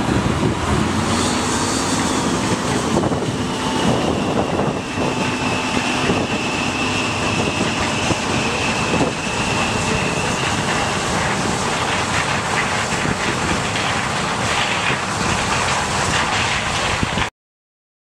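John Deere combine harvester running while harvesting corn: a steady machine drone with a high whine that comes in a few seconds in and fades past the middle. The sound cuts off suddenly near the end.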